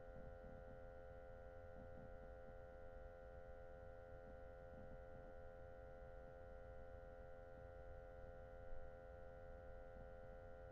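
Near silence: a faint, steady electrical hum made of several held tones, with one brief faint bump a little before the end.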